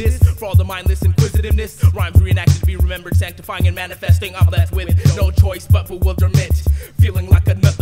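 Hip hop track: a rapped vocal over a beat of low bass-drum hits several times a second.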